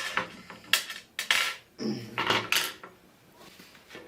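Thin steel bicycle spokes clinking and rattling as they are handled, in a few separate sharp knocks.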